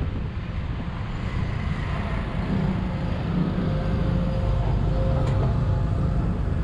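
Steady road traffic noise: engines and tyres rumbling, growing slightly louder partway through.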